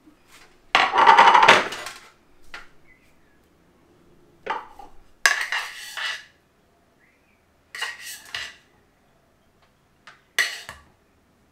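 A utensil scraping and knocking against a frying pan as buttered bread cubes are pushed out of it onto a baking tray. There is one long, loud scrape about a second in, then several shorter scrapes and clatters with quiet gaps between.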